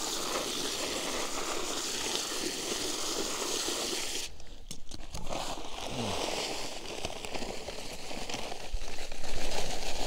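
Dry cement mix pouring out of a bag around the base of a fence post: a steady hissing pour for about four seconds, then rustling and crinkling as the bag is tipped and shaken out, louder near the end.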